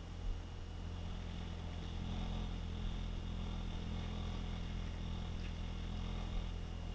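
A steady low motor hum, even and unchanging, with a thin high whine over it.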